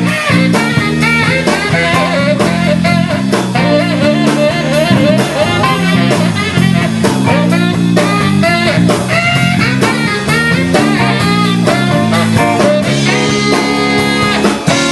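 Band playing an instrumental blues-rock passage: a guitar lead with bent notes over bass and a steady drum beat.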